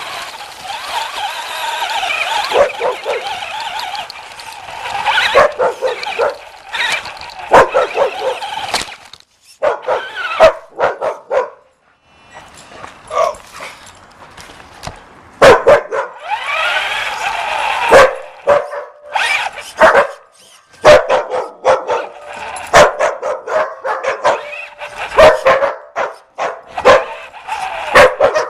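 A puppy barking and yipping in repeated short, sharp bursts, mixed with the whine of a radio-controlled toy car's electric motor rising and falling in pitch as it speeds up and slows.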